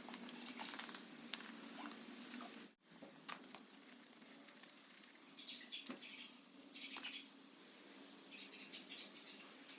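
Faint scratching and scrubbing with a few short hissing sprays: an oily engine being cleaned with aerosol brake cleaner and a wire brush.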